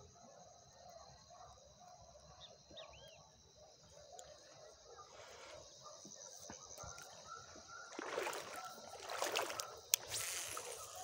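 Evening lakeside ambience: a steady high insect drone with a few short bird chirps. Near the end come a few seconds of louder close-up sloshing and handling noise, with a sharp click.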